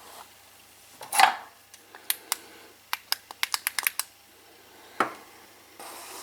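Metal parts and hand tools being handled during cylinder head work. There is a loud clunk with a short ring about a second in, then a quick run of about ten sharp metallic clicks, and another knock near the end.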